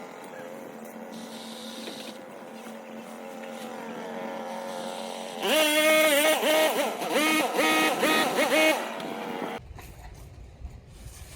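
Stihl HT 103 gas pole saw engine running steadily, then revved in about five throttle bursts, its pitch rising and falling with each one. It cuts off abruptly near the end.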